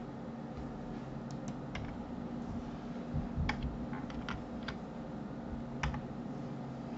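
Computer keyboard keys being pressed: about nine or ten short clicks, scattered singly and in small clusters, over a steady low hum.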